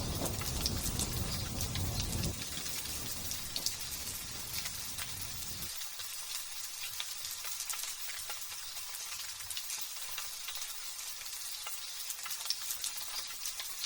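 Light drizzle pattering steadily, a fine crackling hiss of many small drops. Low thunder rumbles at the start, strongest for the first couple of seconds, then weaker, and cuts off about six seconds in.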